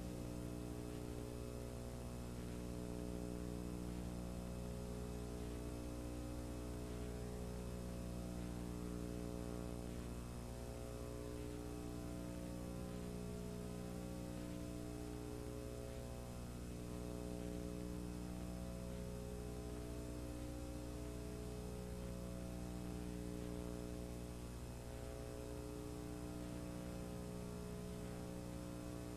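Steady electrical hum made of several held tones. Some of the tones shift in a slow, uneven cycle every few seconds, with faint gliding tones criss-crossing above them.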